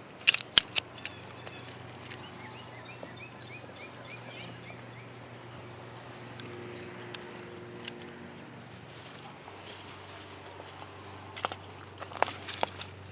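Outdoor ambience with a steady high insect trill and a short run of bird chirps a few seconds in. A few sharp clicks sound near the start and again near the end.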